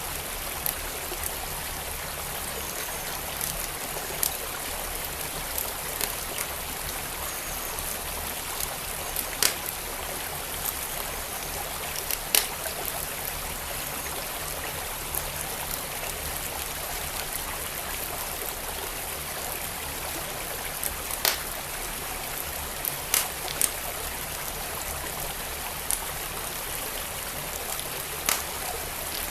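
Steady rush of a flowing stream, with a wood fire crackling over it in scattered sharp pops, the loudest about nine and twelve seconds in.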